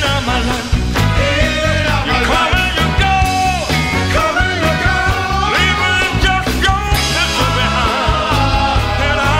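A band playing a Motown-style song, with a lead vocal over a steady bass and drum beat.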